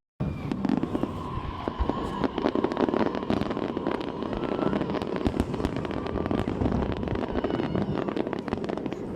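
Fireworks crackling and popping continuously, many rapid sharp pops over a rumbling wash, after a momentary dropout at the very start.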